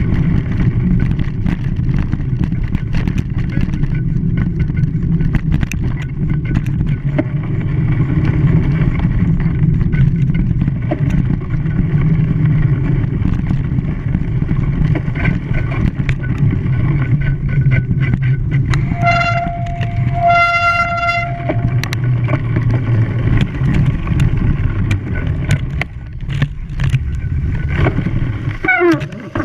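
Steady low rumble of a moving vehicle, with a horn sounding two short toots of the same pitch about two-thirds of the way through.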